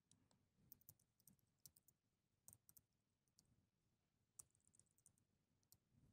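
Near silence, with faint, irregular clicks of typing on a laptop keyboard and one slightly louder click about four seconds in.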